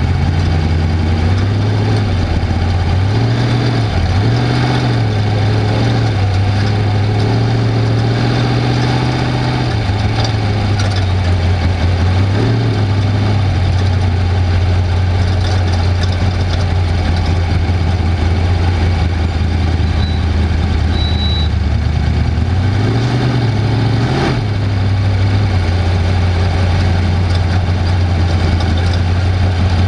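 Off-road race vehicle's engine running loudly with a steady low drone. Its pitch dips and climbs again with the throttle a few times, near the start, about twelve seconds in and near the end.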